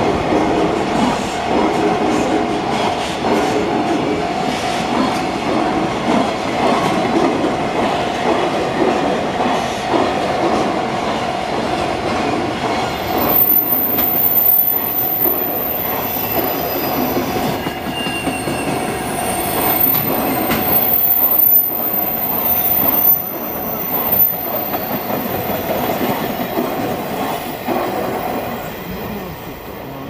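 Loaded container flat wagons of a freight train rolling past on a curve, with a running rumble and wheel clatter and a steady, continuous wheel squeal. The sound fades near the end as the last wagon passes.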